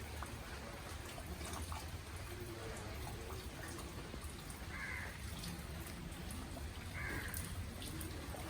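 Water trickling and dripping steadily, with many small scattered drips. A couple of short higher sounds come about halfway through and again near the end.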